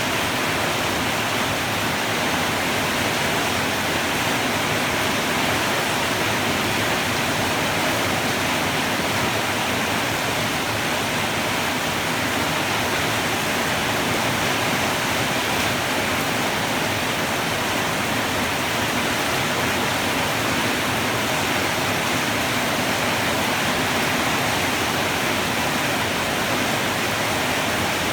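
Heavy rain pouring steadily, an even, dense hiss that does not let up.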